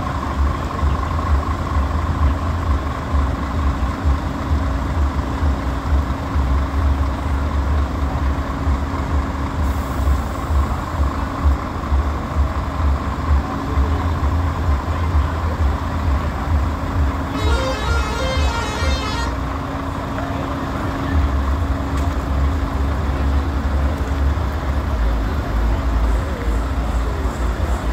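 Parked heavy trucks' diesel engines idling, a steady low rumble, with a brief higher-pitched patterned sound about two-thirds of the way through.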